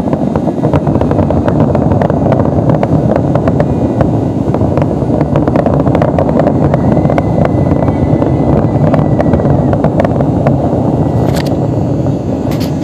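Fireworks finale barrage: a continuous rumble of many overlapping booms, with crackles throughout and a few sharper cracks near the end.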